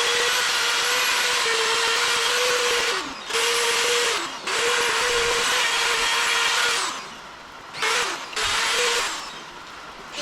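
High-speed power tool motor under load. It lets off briefly twice, about three and four seconds in, its pitch falling each time. It drops to a lower running level around seven seconds, runs up again near eight seconds, and winds down near the end.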